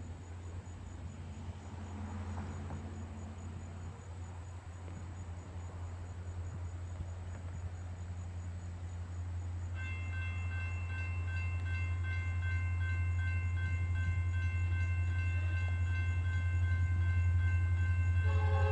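Approaching diesel freight locomotive: a steady low engine rumble that grows gradually louder. From about halfway through, a railroad crossing bell rings steadily, and near the end the locomotive's horn starts to sound.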